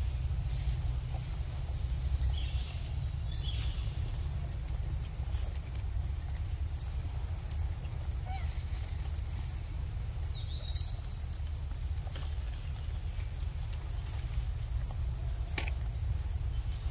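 Forest ambience: a steady high-pitched insect drone over a continuous low rumble, with a few faint short chirps.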